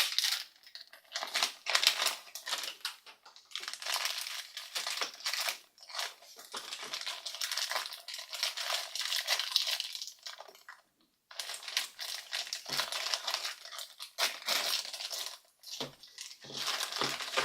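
A blind-bag toy wrapper being torn open and crinkled by hand, in irregular bursts of crackling with short pauses between them.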